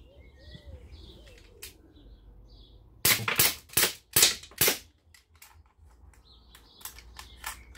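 Umarex T4E HDX 68 CO2 pistol fired about five times in quick succession, about three seconds in, each shot a sharp crack. A few light clicks follow near the end.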